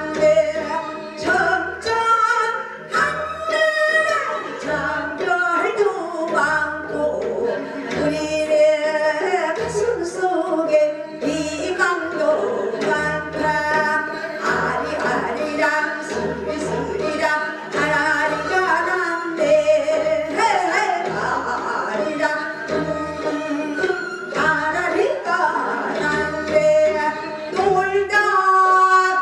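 A woman sings a Korean folk song (minyo) in a pansori-trained voice into a microphone, her pitch bending and wavering. A backing track with a regular low drum beat plays under her.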